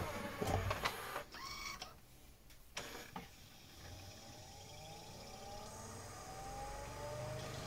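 Pioneer CLD-2950 LaserDisc player starting play: a run of clicks and short mechanical whirs from the loading and clamping mechanism, then the disc spinning up, a faint whine rising steadily in pitch.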